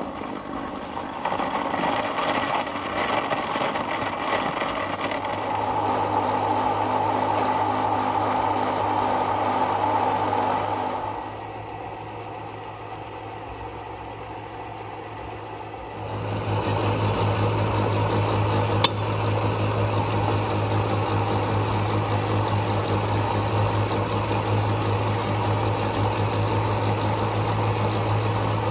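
Electric countertop blender motor running, blending avocado with ice and milk into avocado juice. The steady motor noise and hum drop quieter for a few seconds partway through, then come back as loud.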